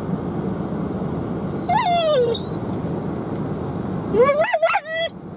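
A dog whining in high, sliding whimpers: one falling whine about two seconds in, then a quick run of rising and falling whines near the end, over a steady background noise.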